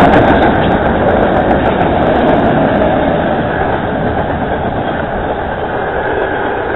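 Norfolk Southern freight train's cars rolling past: a steady noise of wheels on the rails that slowly grows quieter.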